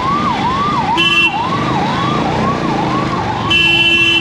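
Electronic siren in a fast repeating rising sweep, about two and a half sweeps a second. A vehicle horn honks briefly about a second in and again, longer, near the end, where the siren stops.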